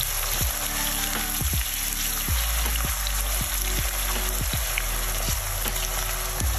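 Diced onions sizzling steadily in hot oil in a non-stick frying pan, stirred with a silicone spatula.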